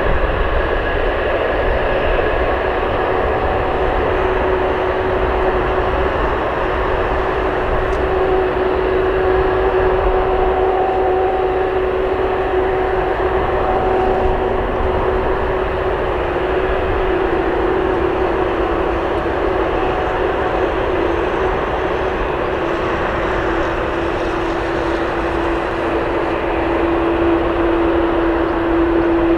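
Jet airliner engines running, a loud steady noise with a held whine that steps slightly lower in pitch about two-thirds of the way through.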